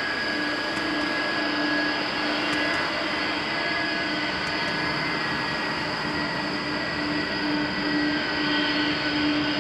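The four jet engines of a Boeing 747-400F freighter running steadily at low power, a high whine over a wide rushing noise, with a low hum that wavers in and out.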